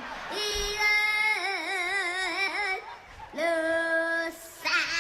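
A young girl singing solo, holding long high notes with wide vibrato, with a short break about three seconds in before the next held note.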